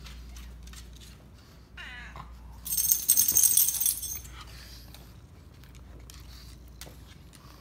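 Siamese cat giving one short meow about two seconds in, followed by a loud, high-pitched scratchy rustle lasting about a second and a half.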